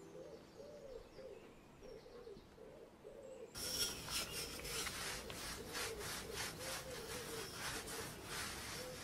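Wooden rolling pin rolled back and forth over bread dough on a floured wooden table: rubbing strokes, about two or three a second, that start abruptly about three and a half seconds in and are much louder than the faint sound before them.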